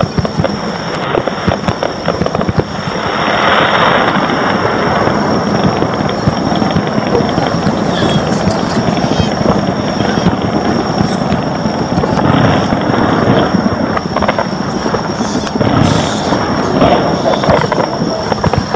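Fireworks display: a dense, continuous barrage of shells bursting with many sharp cracks and crackling over a steady rumble of reports, heaviest a few seconds in.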